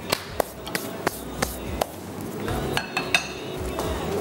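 A cooking utensil knocking against a pan as chicken is stirred. There are about eight sharp knocks at an uneven pace, most in the first two seconds, and the loudest comes a little after three seconds.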